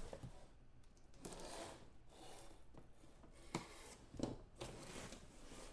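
A cardboard box and its packaging being opened by hand: intermittent tearing and rustling, with a sharp click about three and a half seconds in and a louder knock just after four seconds.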